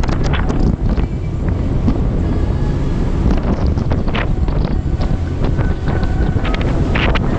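Wind buffeting the microphone on a motorboat running at speed, a heavy continuous rumble with irregular gusts, over the rush of water from the boat's wake.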